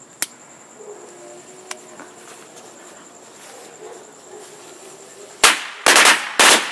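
A single sharp click near the start, then about five and a half seconds in a string of Flying Dragon firecrackers starts going off in rapid, irregular loud bangs, about five in the last second and a bit.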